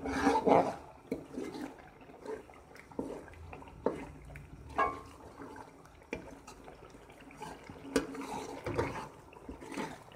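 Steel ladle stirring and scraping chicken and masala frying in ghee in a pot, with irregular knocks and clinks of the ladle against the pot, loudest right at the start, over a wet frying sound.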